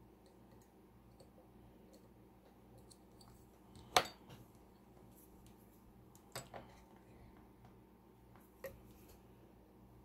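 Small metallic clicks of lock-picking tools against a Mul-T-Lock MT5+ euro cylinder's keyway as tools are changed and inserted: one sharp click about four seconds in, a quick pair about two seconds later, and a single click near the end, with faint ticking between.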